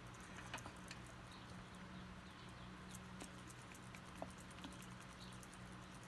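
Faint steady low hum with scattered soft ticks and taps from small acrylic paint bottles being handled.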